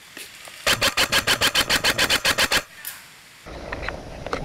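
Airsoft electric M4 rifle, a G&G M4 Predator, firing one burst of about fourteen shots at roughly seven a second, starting a little under a second in. A low rustle of movement follows near the end.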